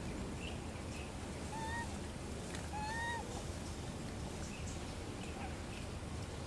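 Two short, slightly arching animal calls about a second apart, the second the louder, with a few faint higher chirps, over a steady low background rumble.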